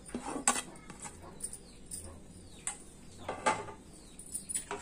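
Fried onion slices scraped by hand off a plate into a steel mixer-grinder jar: a few short scrapes and light knocks of the plate rim and jar, spaced irregularly.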